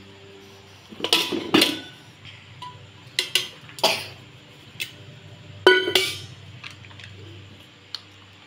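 Stainless steel kitchen vessels and utensils knocking and clinking against each other and the counter, several separate clanks with a louder ringing metal clang about six seconds in.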